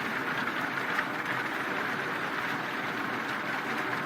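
Wood debarker machine running: a steady mechanical noise, with one brief knock about a second in.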